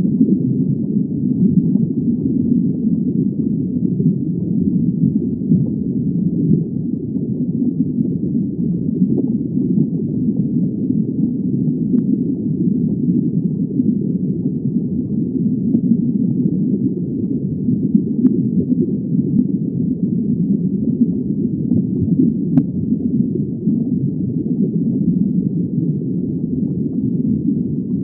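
Steady, muffled low rushing of underwater water ambience, with no distinct events apart from a few faint ticks.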